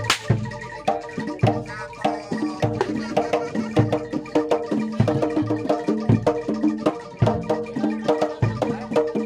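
Javanese gamelan music for a kuda lumping dance: metal mallet instruments ring out a repeating pattern over steady drum strokes. A sharp crack sounds right at the start.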